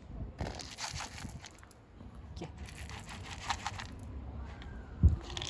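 Kittens eating, with bursts of crunching and chewing. One loud thump about five seconds in.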